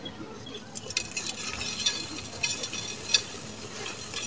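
Dry sand-cement chunks crushed and crumbled by hand: gritty crackling and crunching, with grains and dust pattering into a clay pot. It starts about a second in, with a few sharper snaps along the way.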